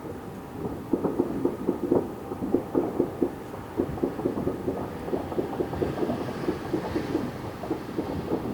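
Distant fireworks going off in a continuous barrage: many dull, muffled bangs in quick succession, growing dense about a second in.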